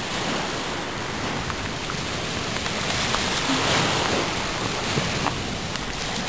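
Small sea waves washing against a rocky shore, mixed with wind on the microphone: a steady rushing noise.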